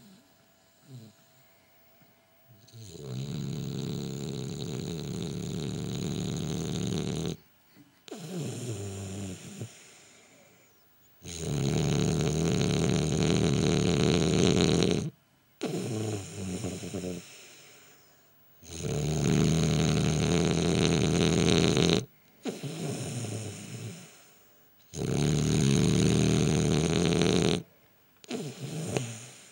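French bulldog snoring in its sleep: about every seven seconds a long, loud snore of some four seconds, each followed by a shorter snore that fades away.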